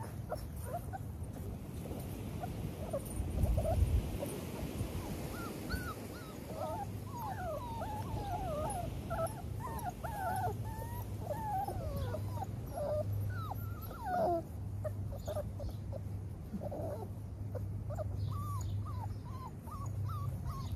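Six-week-old XL pitbull puppies whimpering and whining, a stream of short high cries that rise and fall, thickest in the middle. A low steady hum runs underneath, with a low rumble in the first few seconds.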